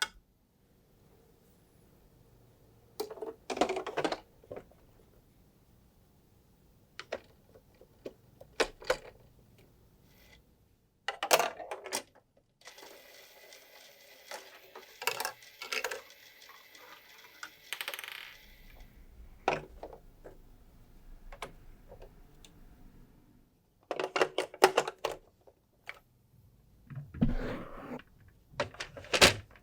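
Marbles clicking and clattering through a building-block marble run, in irregular bursts of sharp clicks with a longer continuous rattle in the middle, as marbles roll down the track and knock against the pieces.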